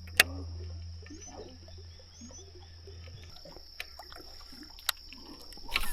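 Frogs calling over a steady high insect drone, with a low hum that stops about halfway through and a few sharp clicks.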